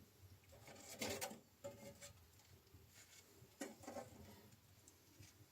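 Faint indoor handling sounds: short bouts of rustling and clicking about a second in, again just before two seconds, and near four seconds, with a quiet room between.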